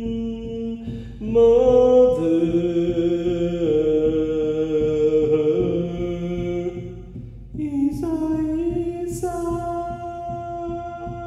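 A man chanting in long held notes that step between pitches, over a steady beat on a large hide frame drum struck with a padded beater. The drumhead is slack from damp, which the player calls definitely loose.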